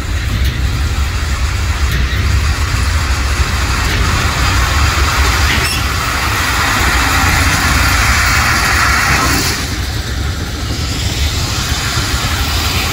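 Loaded ballast hopper cars of a Herzog ballast train rolling past at close range, their wheels rumbling deeply on the rails, while crushed stone pours from the open bottom gates onto the track with a rushing hiss of gravel. The hiss of falling stone swells in the middle and drops away suddenly about two-thirds of the way through.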